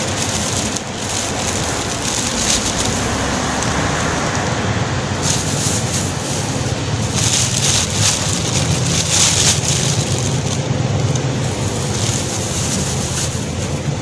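Thin plastic bags crinkling and rustling close by as they are handled and filled with bean sprouts, over a steady low hum.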